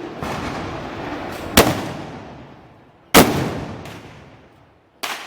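Three loud gunpowder bangs, spaced under two seconds apart, each trailing off in a long echo.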